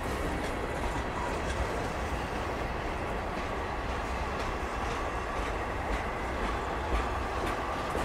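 Freight train tank cars rolling slowly past, their steel wheels clicking over the rail joints with a faint thin squeal, over a heavy low rumble of wind on the microphone.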